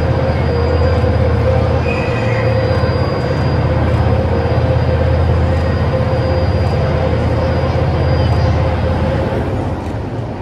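35-tonne overhead crane's motors running steadily with a low rumble and a held whine as the crane brings a suspended railcar body down toward its bogies, then winding down and stopping near the end.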